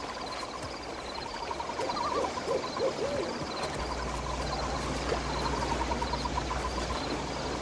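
An owl hooting a few times, over a fast, steady chirping, like a night-time sound effect. A low hum comes in about halfway.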